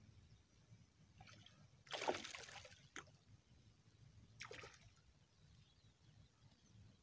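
Splash of something thrown into the reservoir water about two seconds in, with a short fade-out. A smaller splash follows a couple of seconds later.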